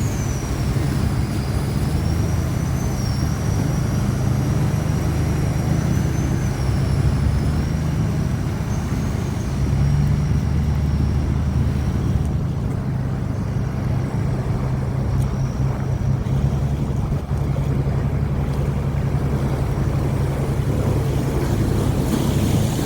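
Chao Phraya Express Boat's diesel engine running steadily with a deep rumble, and a thin high whine that wavers in pitch above it, fading out about halfway through.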